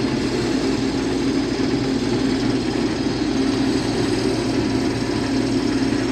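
Case IH combine harvester running steadily with a constant, even drone.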